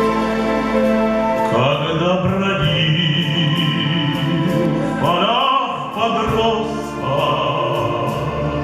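Orchestral introduction to a sung ballad: sustained strings with a light steady beat, and a wavering melodic line that swells up twice.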